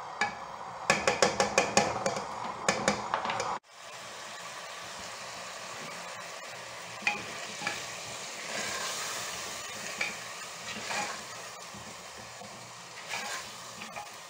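Chicken hearts, onion and bell pepper sizzling as they sauté in an open pressure cooker, with a spoon scraping and knocking against the pot in quick strokes for the first few seconds. After a sudden drop, a steady sizzle goes on with a few scattered knocks of the spoon.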